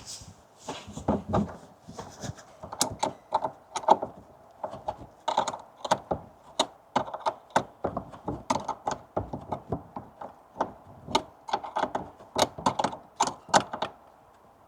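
Ratchet wrench clicking in repeated short strokes, tightening the negative battery terminal clamp.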